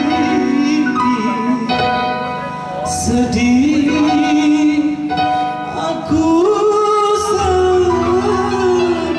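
A solo voice singing long held notes that slide between pitches, over steady sustained instrumental accompaniment.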